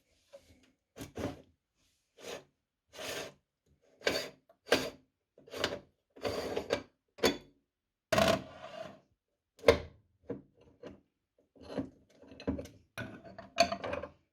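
Meat grinder mincing a kiwi: a dozen short, irregular bursts of rasping and scraping, separated by brief silent gaps.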